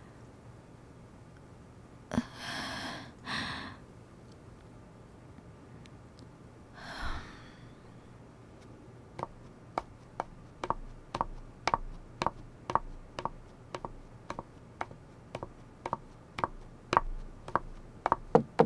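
High-heeled shoes clicking on a hard tiled floor at a steady walk, about two steps a second, ending in a few knocks on a wooden door. Before that, three short breathy sighs.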